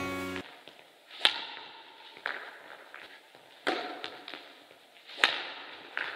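Badminton rackets striking a shuttlecock in a rally, five sharp hits a second or so apart, each echoing in a large sports hall. The hits near the start and near the end are the loudest. A few notes of piano music stop about half a second in.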